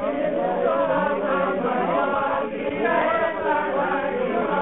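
A group of voices chanting together, many overlapping lines sung continuously without a break.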